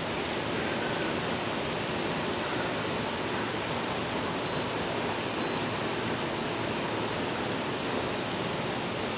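Steady, even rush of river water pouring through the dam's gates, with no breaks.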